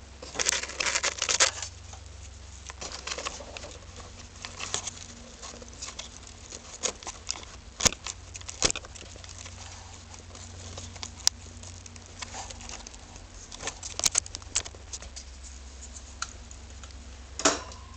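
Irregular rattling and ticking in clusters over the steady low hum of a 2000 Lexus ES300's V6. It is the rattle from beneath the car that the owner hears only at low speeds and loudest when warm, with the heat shields checked and found fine.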